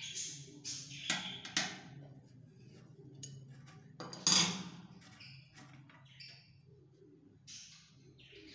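Scattered metallic clicks and knocks as a brass tap spindle is loosened with an adjustable wrench and unscrewed by hand from a sink mixer's valve body, with a sharper clank about four seconds in.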